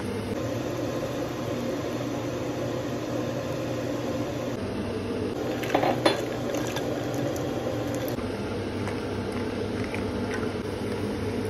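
Steady kitchen hum and hiss over a pan of gravy cooking on a gas stove, with a short clatter of a utensil against the pan about six seconds in.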